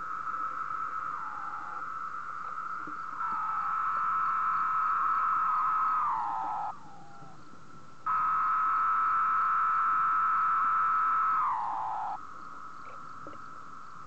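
Male periodical (17-year) cicada singing with its tymbals: a steady buzzing tone, with two long, louder calls of a few seconds each that end in a falling slur. A fainter steady buzz carries on between them.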